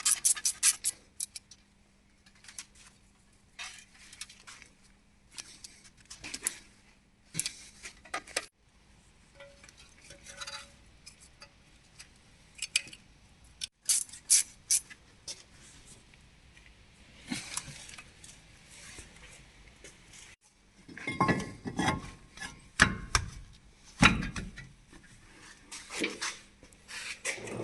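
Hand tools and metal parts clinking and knocking at irregular intervals during suspension work on a car. The sounds are sparse at first and get louder and busier about three-quarters of the way through, with a few dull thumps among them.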